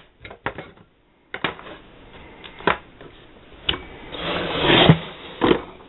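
Hand tools being handled in the wooden tills of a tool chest: scattered clicks and knocks of metal and wood, and a rustling scrape about four seconds in.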